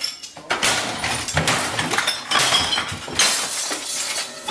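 A room being smashed up: repeated crashes and clattering of thrown objects, with clinking and breaking glass.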